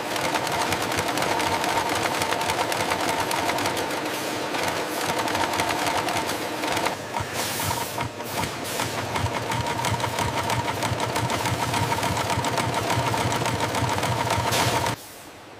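Multi-head industrial sewing machine running at speed, stitching leather panels: a rapid, steady patter of needle strokes over a hum, dipping briefly about halfway and cutting off suddenly just before the end.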